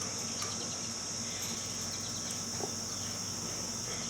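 Steady high-pitched drone of insects, with a faint low hum under it and a few small clicks.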